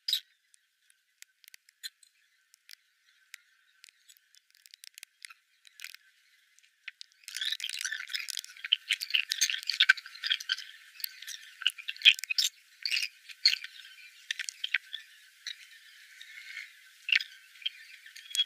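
Typing on a computer keyboard: scattered single key clicks at first, then a fast, dense run of typing from about seven seconds in.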